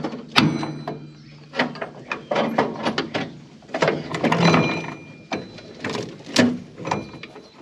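Metal clanking and knocking from hand work on a John Deere 567 round baler: a dozen or so irregular strikes, some leaving a brief metallic ring, over a low steady hum.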